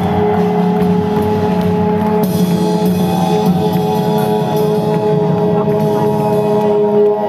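Music played over public-address loudspeakers: long held notes over a drum beat.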